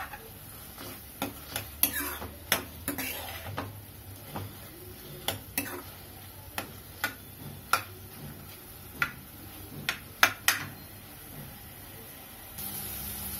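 Metal ladle stirring chopped tomatoes in an aluminium kadhai, clinking and scraping against the pan in irregular sharp strikes. About a second before the end, the steady background noise rises.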